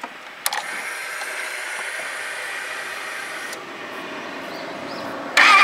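Ducati 1199 Panigale S with ignition switched on: a click, then a steady electric whir for about three seconds as the fuel pump primes. Near the end its 1198 cc Superquadro V-twin starts through the Termignoni exhaust, with a sudden loud onset.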